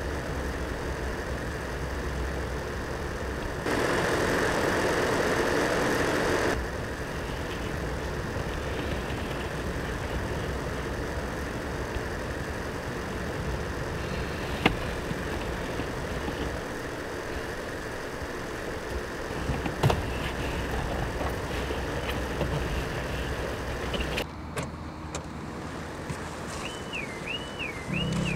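Steady car-interior noise with a low engine hum. About four seconds in, a louder rush of noise swells for about three seconds, and two sharp clicks come later. Near the end the drone drops away to a quieter outdoor background.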